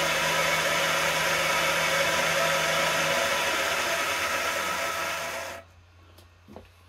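Milling machine spindle running with a valve seat cutter on a cast-iron 12G940 A-series cylinder head: a steady mechanical running noise with a low hum that drops out about three seconds in. The machine stops abruptly about five and a half seconds in, leaving a couple of faint clicks.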